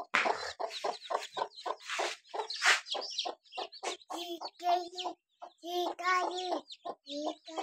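Caged chickens clucking: a fast run of short, harsh calls, then from about four seconds in pitched clucks in quick groups of two or three.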